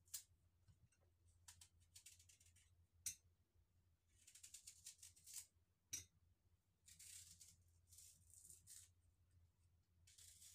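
Small kitchen knife peeling the skin off a green Indian mango: a series of faint, short scraping strokes, with two sharper clicks.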